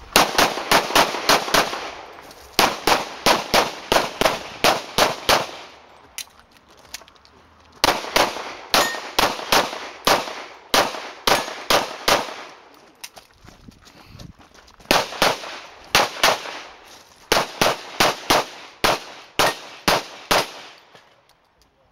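Pistol shots fired in quick strings of six to ten, about three a second, with pauses of a second or two between strings.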